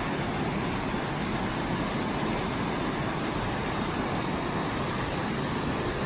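Waterfall and whitewater rapids rushing: a steady, loud, unbroken noise of falling and churning water.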